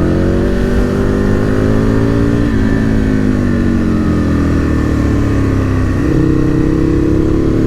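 Aprilia RSV Mille R's V-twin engine running through an Akrapovic exhaust while riding. The engine note falls slowly for several seconds, then climbs again from about six seconds in.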